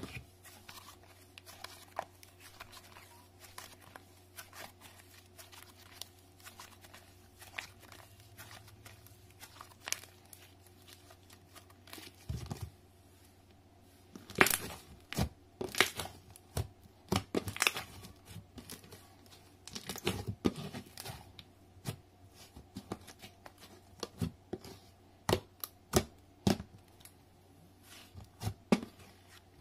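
Clear slime mixed with sand being kneaded, folded and poked by hand, giving irregular sticky pops and crackles. They are sparse and faint for the first dozen seconds, then come louder and in bunches.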